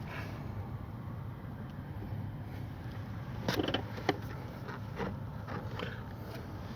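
A few light clicks and knocks, the clearest about three and a half and four seconds in, from handling car interior parts, over a steady low hum.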